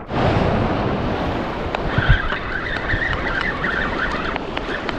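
Wind buffeting the microphone over the wash of surf on a rocky reef, with a spinning reel whirring from about two seconds in as the angler works a fish snagged on the reef.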